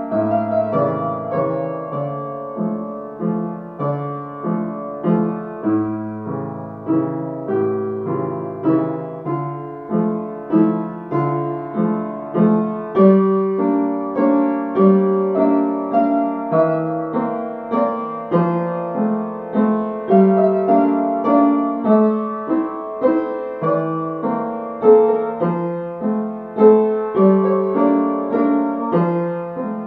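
Solo upright piano playing a Cefalonian song tune: a melody over steady, evenly paced accompanying notes, with no singing.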